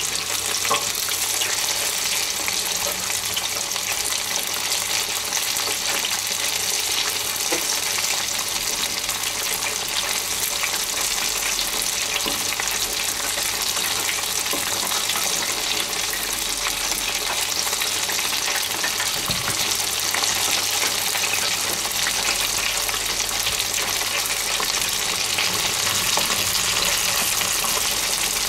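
Two breaded chicken breasts deep-frying in hot oil in an electric deep fryer: a steady, even sizzling and bubbling.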